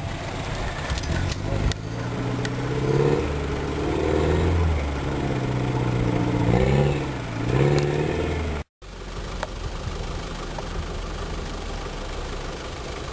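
Off-road 4x4's engine revving up and down under load as the vehicle climbs out of a dirt gully. About nine seconds in the sound cuts out for an instant, then a steadier engine sound runs on.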